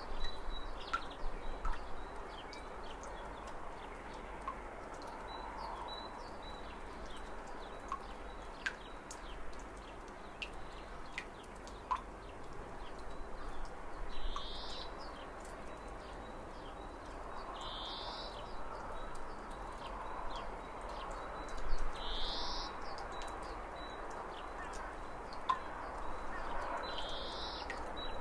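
Birds calling outdoors. A short call repeats four times, about every four seconds, over a steady background hiss with scattered light ticks.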